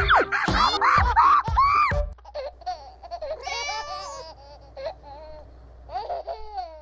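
Cartoon character voices laughing and babbling over light background music; the first couple of seconds are loud squeaky rising-and-falling calls, then the voices go quieter.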